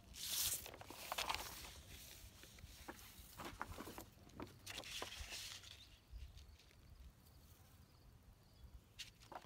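Large sheets of paper being handled and laid down on concrete: short bursts of rustling and crackling, loudest about half a second in and again around five seconds, with a few small taps.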